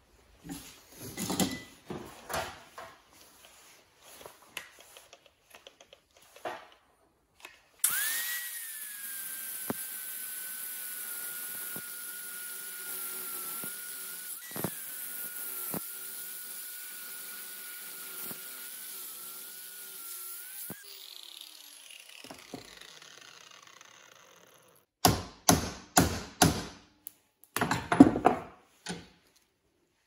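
Angle grinder starting up and running with a steady whine as its cut-off wheel cuts into the steel core of a microwave oven transformer held in a bench vise, then spinning down. Before it there is metallic clatter as the transformer is handled in the vise, and near the end there is a run of about six sharp knocks.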